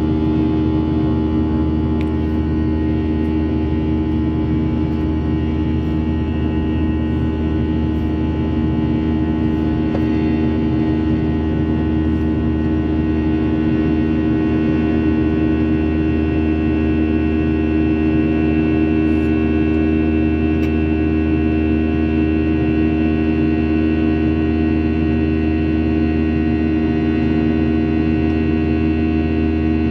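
Boeing 737-900ER's CFM56-7B turbofans and airflow heard from inside the cabin during the climb: a steady, loud drone with a low rumble and several constant humming tones.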